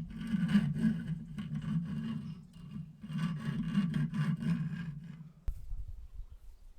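Hand rasping or scraping strokes on a hard material, like filing or sawing, in two bouts of rapid strokes. They give way to a duller low rumble of handling about five and a half seconds in.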